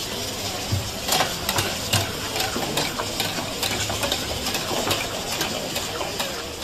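Flat metal spatula clinking and scraping against a steel karahi wok as chicken karahi is stirred, several sharp clinks a second, over a steady cooking hiss.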